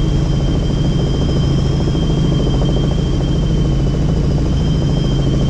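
Helicopter running, a steady loud drone of rotor and engine with rapid fast flutter and a high steady whine over it.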